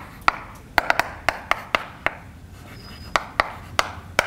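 Chalk writing on a blackboard: sharp irregular taps in quick clusters as subscripted matrix entries are written, over a faint scratching, with a brief faint high squeak about three seconds in.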